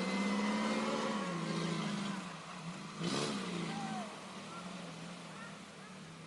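Off-road 4x4's engine running under load, loudest in the first two seconds. About three seconds in the revs dip and rise again, and then the engine runs quieter.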